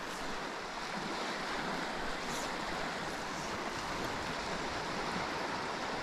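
Fast, full river water rushing steadily, a constant even wash of sound.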